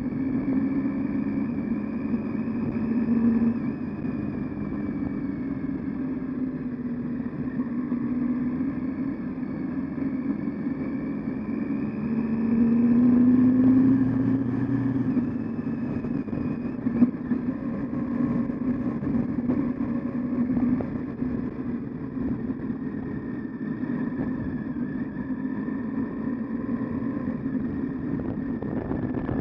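Triumph Tiger 800XC's three-cylinder engine running at low speed, with a brief, louder rise in revs about thirteen seconds in. A single sharp knock comes a few seconds later.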